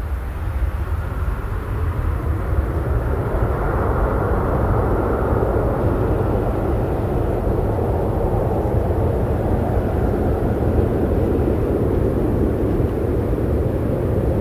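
Airbus A321-231's two IAE V2533 turbofan engines at takeoff climb thrust, a steady rumble that grows louder over the first few seconds as the airliner climbs away.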